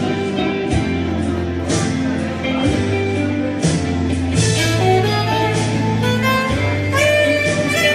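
Music playing at a steady level: a sustained bass line, guitar, and a beat struck roughly once a second.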